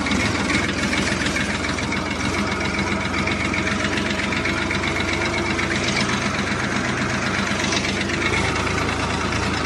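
Farm tractor's diesel engine running steadily under way across a ploughed field, heard loud and close from the driver's seat: an even low drone with a buzzing overtone.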